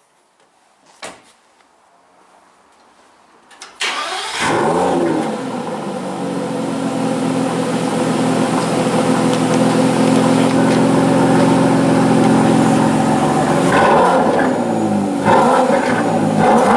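A car engine is started after a single click. It catches with a loud flare of revs about four seconds in, then settles to a steady idle, and is blipped a few times near the end.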